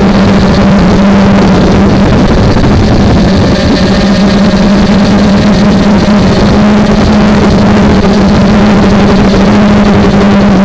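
Brushless motors and propellers of a 250-size FPV quadcopter in flight, heard loud and close through its onboard camera's microphone: a steady motor drone with a strong low hum and a higher whine above it. The audio is harsh, which the owner puts down to old motors.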